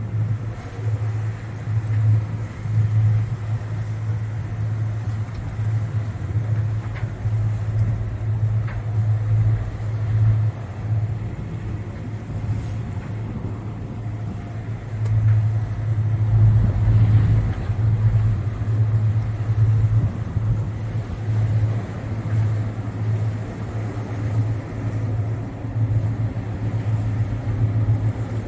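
A yacht's engine running steadily under way: a low drone that swells a little past the middle, with wind and water noise around it.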